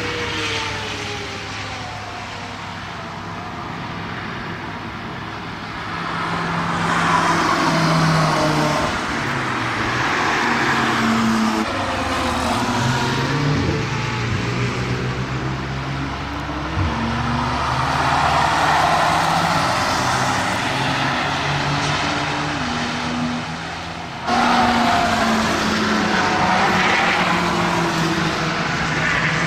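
Cars passing one after another through a fast corner, engines running and tyres rolling on the asphalt, each swelling in level and then fading as it goes by. Near the end, after a sudden cut, a motorcycle's engine takes over.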